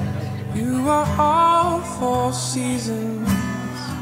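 Background music: a slow, tender love song, a voice singing a held, gliding melody line over soft steady accompaniment.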